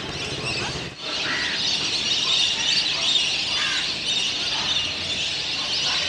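A large flock of ducks on open water calling together: a dense chorus of many high, overlapping whistling chirps. It breaks off briefly about a second in.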